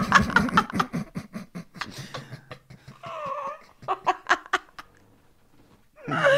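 Several people laughing hard: breathy, wheezing bursts of laughter, a high wavering squeal of a laugh about three seconds in, and more quick gasps of laughter, dying away about five seconds in.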